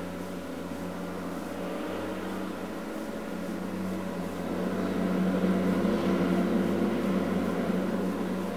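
Tigercat LX870C feller buncher's diesel engine running steadily under hydraulic work, growing louder about halfway through and easing off near the end.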